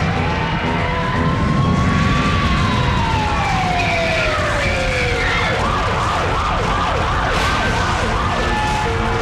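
Earthquake-attraction effects: a deep, continuous rumble under a single wailing, siren-like tone that rises over the first two seconds and then slowly falls. In the second half, a tangle of overlapping wavering wails follows.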